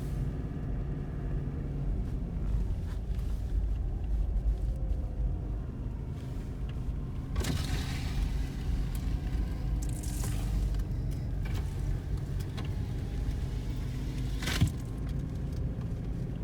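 Car driving on a snowy road: a steady low rumble of engine and tyres, with a few brief hissing surges and a sharp knock near the end.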